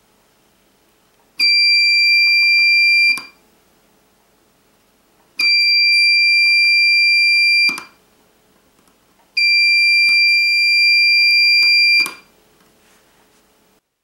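A homemade theft-alarm circuit's 5 V buzzer sounds a loud, steady high-pitched tone three times, each about two seconds long with roughly two-second gaps between. The alarm goes off when its USB power is cut, running the buzzer from its supercapacitor.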